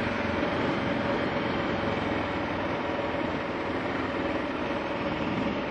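Steady wind rush and the running 2009 Kawasaki KLR 650's single-cylinder engine on a moving motorcycle, holding an even note with no revving or breaks.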